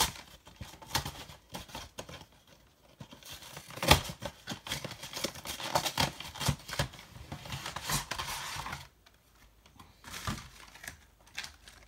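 Plastic shrink-wrap crinkling and tearing and cardboard packaging being pulled open as a Pokémon TCG collection box is unsealed: a busy run of rustles, rips and clicks, with a sharp crack about four seconds in and a short lull near nine seconds.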